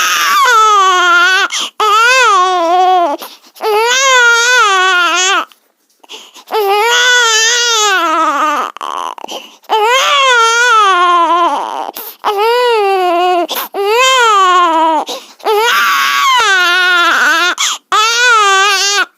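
Baby crying in about nine long, loud wails with a wavering pitch, separated by short breaks for breath.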